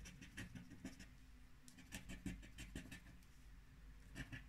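Faint, quick scraping strokes of a plastic token rubbing the silver scratch-off coating on a paper lottery scratch card, in short runs of several strokes a second.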